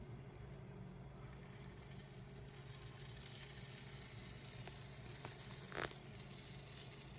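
Pancake batter frying in oil in a pan, a faint, thin sizzle, with a few light clicks and one brief louder scrape near the end.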